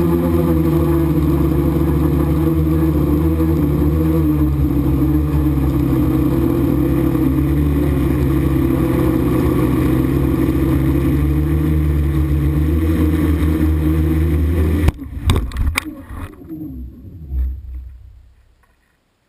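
Quadcopter's electric motors and propellers whirring steadily, heard from the onboard camera. About 15 s in the whir cuts off abruptly, with a few sharp knocks as the craft comes down on the gravel, and the motors wind down with a falling hum into near quiet.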